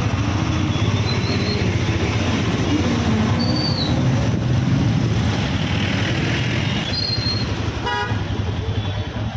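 Motorcycle engine and road noise while riding slowly through town traffic, with several short vehicle horn toots from the traffic around it.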